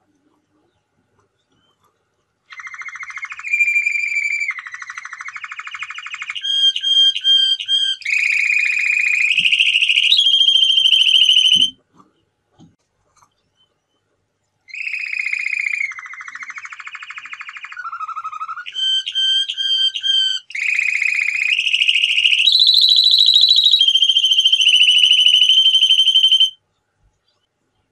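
Male domestic canary singing: two long songs of about ten seconds each, built from a run of fast rolling trills and held whistled notes that step up and down in pitch, with a pause of about three seconds between them.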